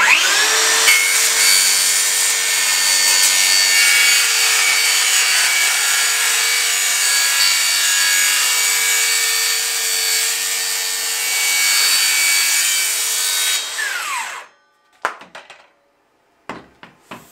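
DeWalt cordless circular saw riding a track guide, spinning up and ripping a long straight cut through a board. This is the first pass, which trims the track's zero-clearance strip to the blade. Its steady whine runs over the cutting noise for about thirteen seconds, then winds down with a falling whine, and a few clicks and knocks follow as the saw is set down.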